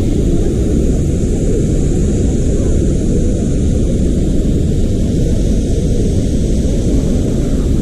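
Steady, loud rush of water falling at a large waterfall, heard from close to its foot: an even, deep noise that does not change.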